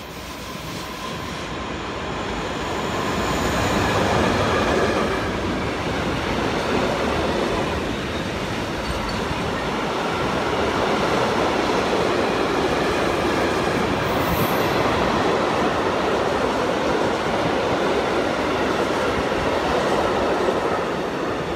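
A long freight train of tank wagons hauled by an electric locomotive rolls past, with the steady rumble and clatter of wheels on rail joints. It grows louder over the first few seconds as the train draws level, then stays steady. There is a brief high wheel squeal about two-thirds through.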